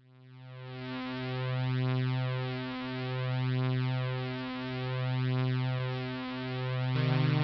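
Electronic synthesizer drone: one low buzzy tone that fades in from silence, then swells and ebbs slowly, about every second and a half to two seconds. Its tone changes near the end.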